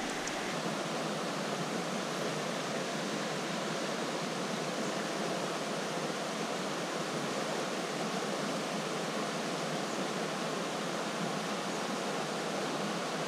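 River water flowing, a steady rush of current.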